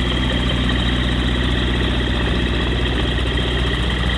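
Light aircraft engine running steadily, a low even drone.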